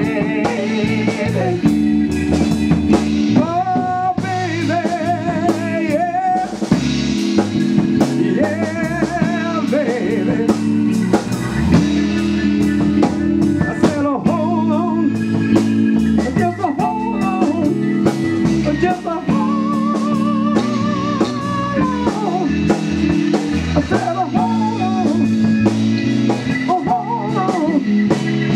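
A live band playing a bluesy section of the song: guitar and drums under a wavering, bending lead line, with no words picked out.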